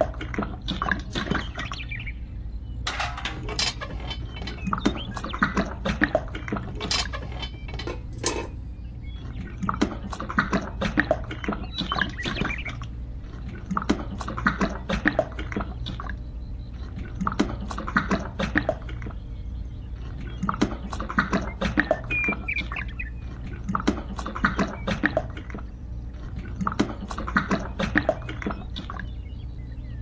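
Small bucket tapping and scraping as wet concrete mix is poured into miniature column forms: clusters of clicks and scrapes every second or two, over a steady low hum.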